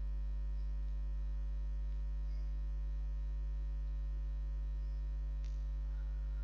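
Steady electrical mains hum at about 50 Hz with a ladder of overtones, picked up in the recording chain, with one faint click about five and a half seconds in.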